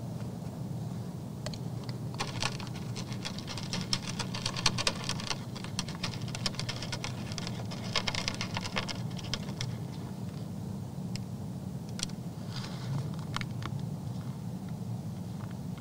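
A whitetail buck feeding from a trough: rapid crunching and clicking as it picks up and chews the feed, heaviest in the first half, thinning to a few scattered clicks once it lifts its head. A steady low hum runs underneath.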